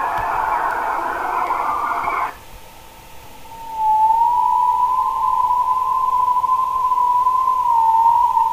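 Eerie background music with no voice. For the first two seconds there is a harsh hiss in a narrow band. After a short drop, a single high tone that wavers slightly starts at about three and a half seconds and is held steady.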